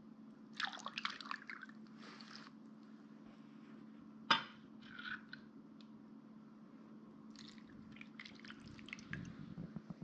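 Small splashes and drips of liquid marinade in a stainless-steel pot of fish pieces, coming in short spells, with one sharp metal clink about four seconds in. A low steady hum runs underneath.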